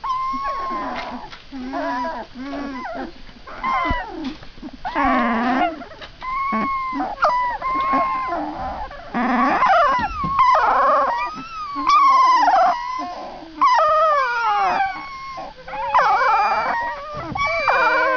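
A litter of newborn puppies whining and squealing: many high, wavering cries that rise and fall in pitch, often several at once, more crowded in the second half.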